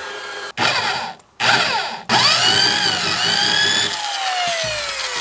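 Corded electric drill spinning a rubber decal-eraser wheel against a truck door. It starts in two short bursts, then runs with its pitch rising and falling under load, and slows with a falling whine from about four seconds in. The wheel is not biting on the baked-on decal.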